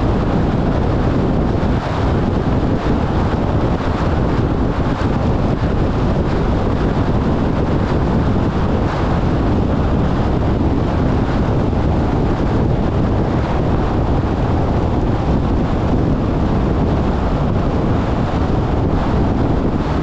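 Steady rushing wind noise buffeting the microphone, heavy in the low end, with no distinct events.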